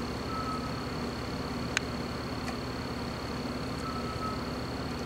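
Steady background hum and hiss with a faint high whine, broken by one short click about two seconds in.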